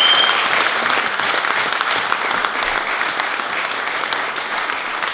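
A roomful of guests applauding, the dense clapping slowly dying down. A brief high whistle-like tone sounds right at the start.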